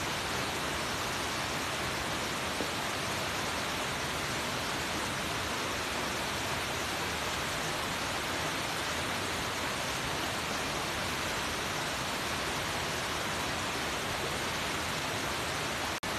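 About 50 m tall waterfall crashing into its pool: a steady, even rush of falling water, broken by a brief dropout near the end.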